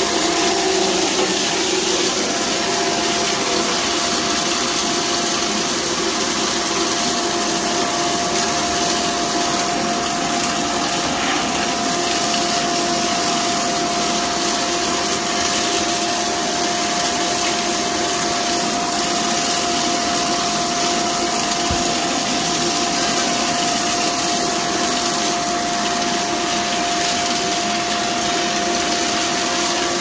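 Vacuum cleaner running steadily with a constant tone over its rushing airflow as its floor head picks up dirt from a tile floor.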